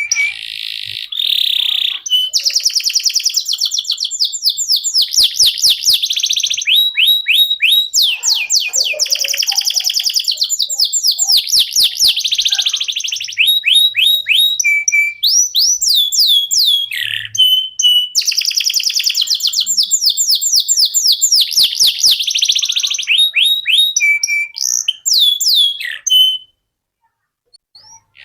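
Domestic canary singing a long, continuous song of fast trills and quickly repeated sweeping notes. It stops about a second and a half before the end.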